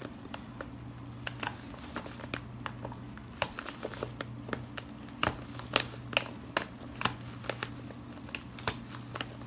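White plastic courier mailer crinkling and crackling as hands peel its glued seal open, in many sharp irregular crackles, over a steady low hum.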